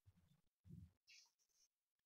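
Near silence: room tone with a few faint, brief low sounds and a short soft hiss about a second in.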